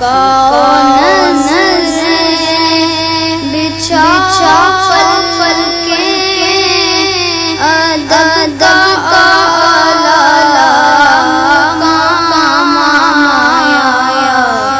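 A boy singing a naat, an Urdu devotional song in praise of the Prophet, in a high voice: long held notes with gliding, ornamented turns between them.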